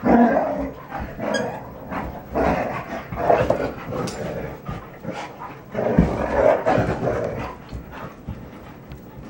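Standard poodles play-barking in rough play, in several bursts, with scuffling and thuds as they wrestle.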